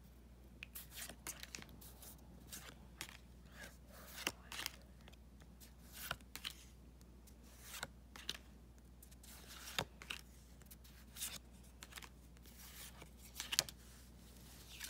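A stack of Pokémon trading cards being flipped through by hand: an irregular run of short, soft swishes and clicks as each card slides off the front of the stack and against the others.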